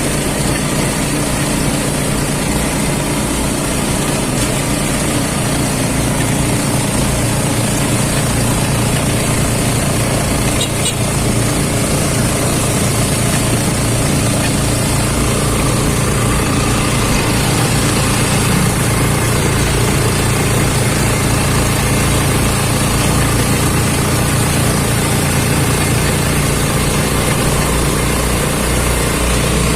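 A vehicle engine running steadily, with road noise, heard from aboard the moving vehicle.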